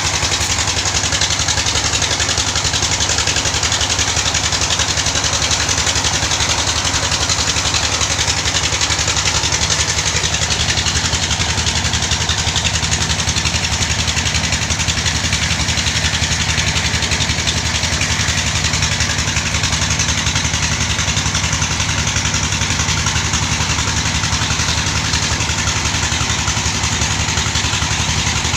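Tin-mine '48 D' engine running steadily at a constant speed, with a fast, even pulsing beat.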